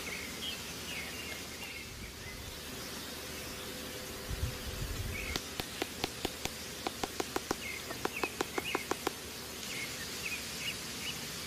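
Forest ambience with insects and birds chirping. Past the middle there is a low thump, then a run of sharp wooden knocks, several a second, for about four seconds, as a bamboo stake is driven into the ground.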